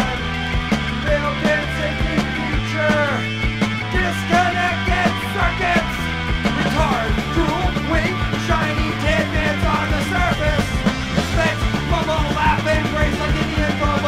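Punk rock song played from a vinyl record: a full band of drums, bass and guitar with a sung vocal line.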